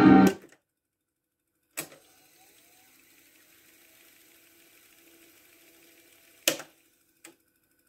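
Philips N4504 reel-to-reel tape deck: organ music playing from the tape cuts off as a key is pressed, then a clunk of the transport keys about two seconds in starts the reels spooling faintly at fast wind. A louder clunk stops the winding near the end, followed by a small click.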